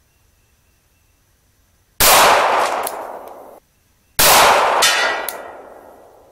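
Two gunshots about two seconds apart, each sharp crack trailing off over a second or two as it echoes through the woods.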